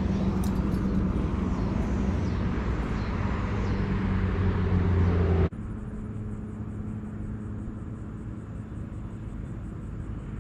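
Low, steady engine rumble of road traffic. It cuts off suddenly about five and a half seconds in, leaving a quieter steady background.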